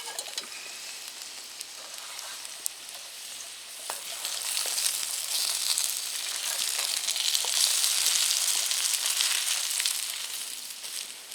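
Food frying in a pan over a campfire: a steady sizzle that swells about four seconds in and eases near the end, with a few small clicks and pops.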